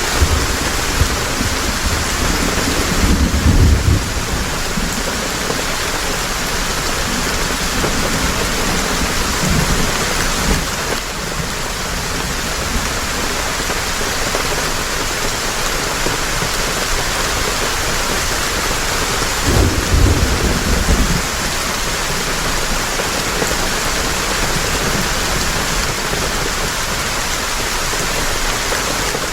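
Heavy rain falling steadily, with low rolls of thunder rumbling briefly twice, about three seconds in and again about twenty seconds in.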